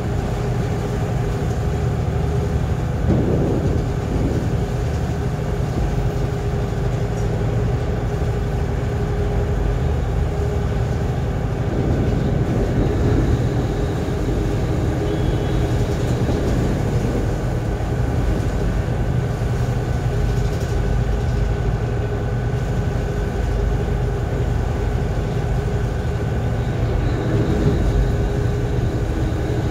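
A Thames river boat's engines running steadily under way: a constant low drone with a faint steady hum above it.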